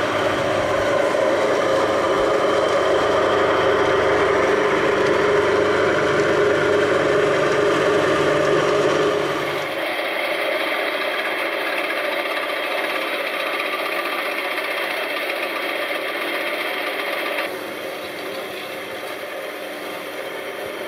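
Drill press motor running steadily while a twist bit bores through steel box section, cutting fluid brushed on as chips curl off. The sound drops and thins abruptly about ten seconds in, and drops again a few seconds before the end.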